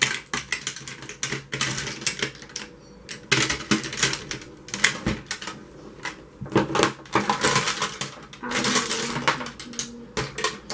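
Makeup brushes and small hard product cases clattering and clicking as they are rummaged through, a rapid, irregular run of sharp clicks.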